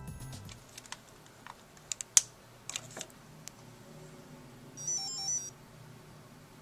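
Electronic tones from an embedded board's I2S audio playback stop just after the start. A few sharp clicks follow, the loudest a little past two seconds, and about five seconds in comes a short, high, warbling electronic beep like a ringtone.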